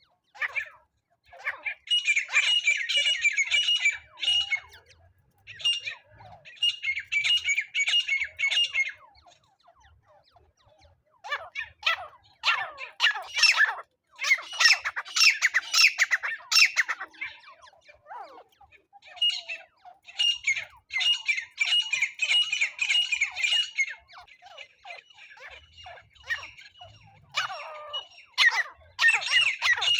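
Francolin calling: loud, harsh bouts of rapidly repeated notes, each lasting a few seconds, with short pauses between them.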